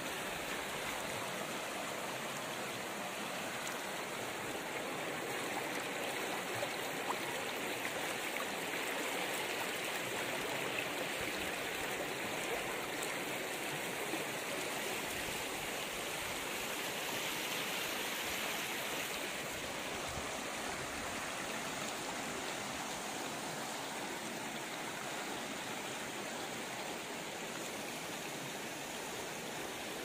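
Shallow, silty hill stream rushing steadily over boulders and stones in small rapids.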